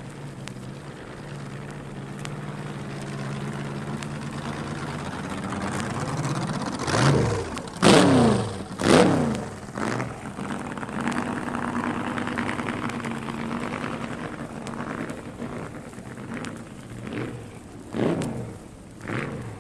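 Dragster engine running at idle, then revved in a quick run of sharp throttle blips about seven to ten seconds in. It settles back to a steady idle, with more blips near the end.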